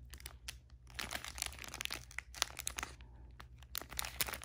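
Clear plastic packaging of a bag of diamond painting drills crinkling as it is handled and turned over in the hands, in irregular clusters of crackles.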